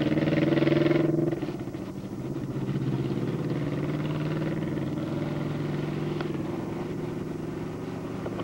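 Motorcycle engine accelerating away, its pitch rising, then dropping about a second in to a quieter, steady engine drone.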